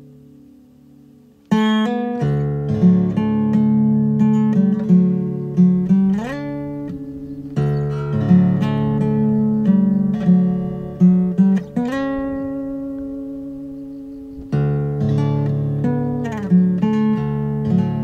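Background music: an acoustic guitar picking a gentle melody. It comes in suddenly about one and a half seconds in, after the faint end of a sustained soft piece, and starts new phrases twice more.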